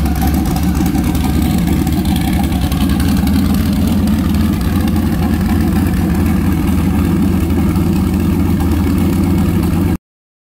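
Turbocharged LS V8 in a race Mustang, just started and idling steadily. It cuts off abruptly near the end.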